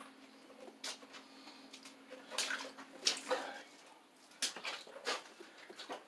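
Plastic-sheathed electrical cable being pulled through holes in wooden floor joists: irregular scraping, rubbing and knocking, with a man's strained breaths and grunts from the effort.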